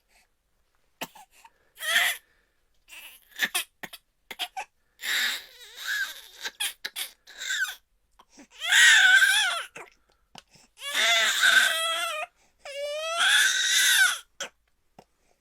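High-pitched cartoon-style crying sound effect: a voice sobbing in short bursts, then breaking into long wails, the loudest a little past halfway and near the end, with a rising whimper between them.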